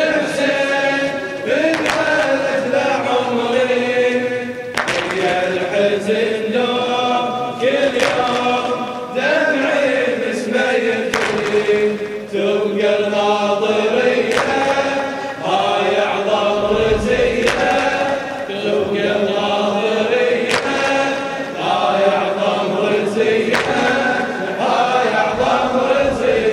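A group of men chanting a Shia latmiya mourning refrain in unison, with sharp chest-beating strikes about every one and a half seconds.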